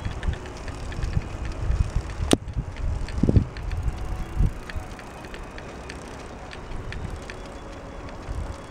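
Riding noise of Hase Kettwiesel recumbent trikes on an asphalt path: tyres rolling with chain and frame clicks and rattles, over a low rumble of wind on the microphone. A sharp click about two seconds in, and a couple of dull thumps just after.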